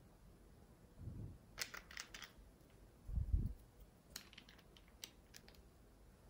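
A small glass nail-polish bottle and its brush cap being handled: two clusters of light clicks and taps, about one and a half and four seconds in, with two soft low thumps around one and three seconds in, the second the loudest.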